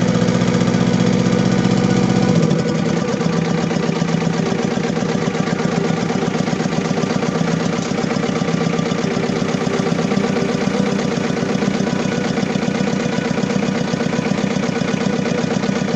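Diesel engine idling rough with a misfire and vibration, which the owner traces to badly spraying fuel injectors. The deep low rumble drops away about two and a half seconds in.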